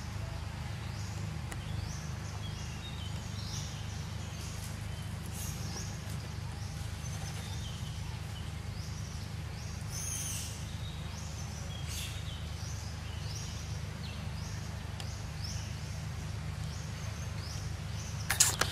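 Outdoor ambience: a steady low hum with short, high chirps repeating about once or twice a second. A brief sharp noise near the end is the loudest sound.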